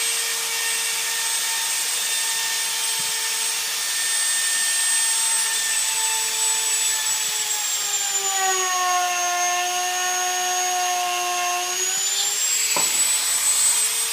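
Electric drill motor running steadily with a 1/8-inch bit. About seven seconds in its whine drops in pitch as the bit loads up boring through the rocket tube, then climbs back near the end as it breaks through, with a short click just before.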